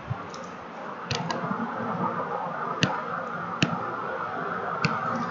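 Computer mouse clicking about five times, sharp separate clicks, over a steady background hiss that comes up about a second in.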